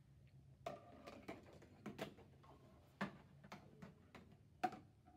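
A marble rolling and dropping through a marble run of cardboard paper-towel and toilet-paper tubes taped to an upright cardboard board: a string of faint, irregularly spaced taps and knocks.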